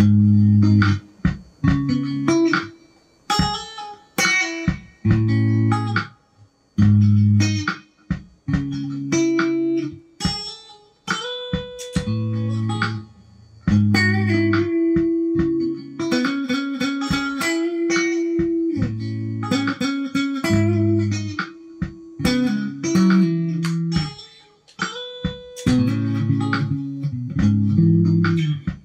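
Amplified electric guitar played solo: soul-style chords and single-note fills, with sharp pick attacks, notes left ringing, and short pauses between phrases.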